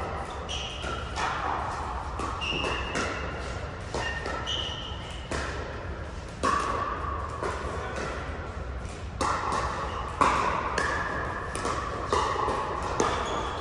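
Pickleball rally: paddles striking a plastic pickleball in sharp pops at irregular intervals, ringing in a large indoor hall.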